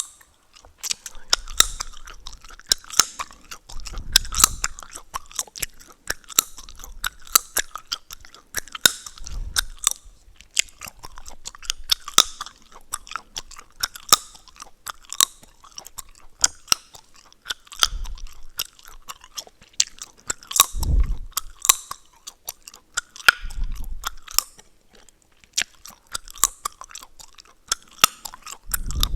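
Chewing gum chewed close to the microphone: steady wet chewing with frequent sharp cracks and snaps of the gum.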